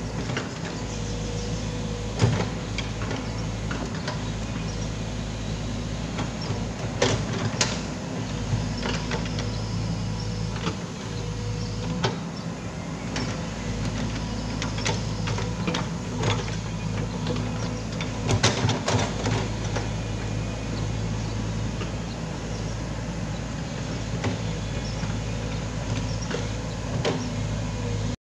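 Foton crawler excavator's diesel engine running steadily with a thin hydraulic whine as it digs, with scattered sharp knocks and clanks from the bucket and boom, clustered about seven seconds in and again near eighteen seconds.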